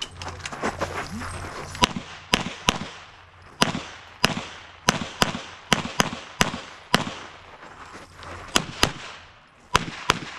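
Pistol shots fired in a competition string: about fifteen sharp reports, mostly in quick pairs a third of a second apart, with short pauses between groups as the shooter moves between positions. Each shot has a brief echo tail.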